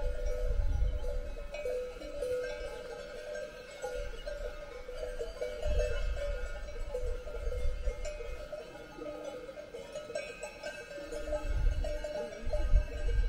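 Many cowbells on grazing Appenzell cattle clanking and ringing irregularly, their tones overlapping. Low rumbles of wind buffet the microphone every few seconds.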